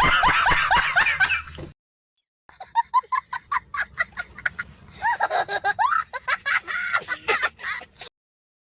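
Laughing sound effects: a dense burst of laughter that cuts off sharply about a second and a half in, then after a short gap a long fast run of short, high-pitched laugh pulses, many to the second, with a hen-like cackling quality.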